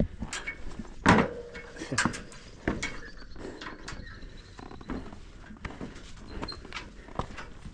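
A hiker's footsteps and scrambling on rough rock: irregular scuffs, crunches and knocks, the loudest about a second in.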